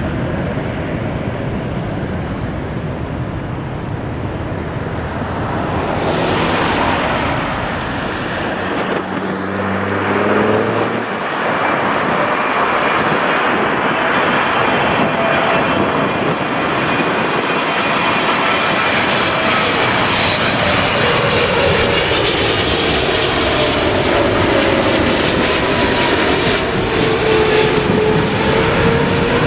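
Boeing 777 jet airliners on landing approach. Their engines make a steady jet noise with whining tones. Late on, as the second aircraft passes overhead, the engine tone slowly falls in pitch.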